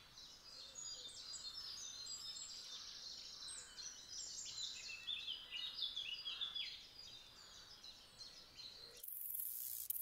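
Several small songbirds singing, a dense run of quick chirping and trilled notes over light outdoor ambience. About nine seconds in it cuts off abruptly and a steady hiss takes over.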